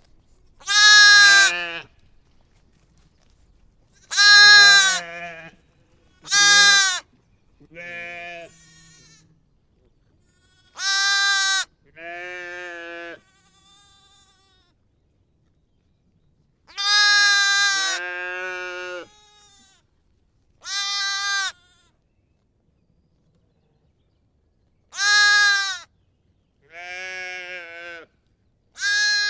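Sheep and lambs bleating repeatedly: about a dozen separate calls a few seconds apart, some loud and some quieter.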